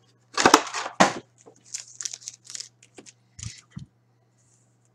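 Foil-wrapped hockey card packs crinkling and rustling as a stack of them is handled, loudest in the first second. About three and a half seconds in come two soft knocks as the stack is set down on the table mat.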